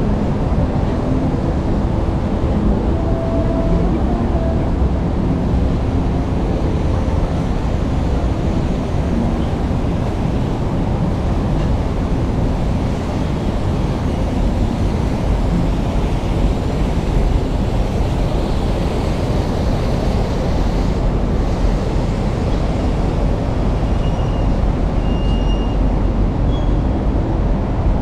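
Steady low rumble of city traffic mixed with wind on the microphone, with a few faint short high tones near the end.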